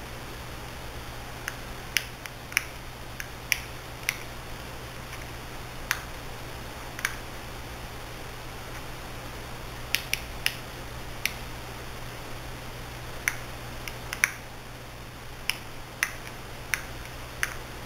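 Irregular small, sharp clicks and taps from laptop parts being handled while a new LCD screen panel is fitted, over a steady low hum.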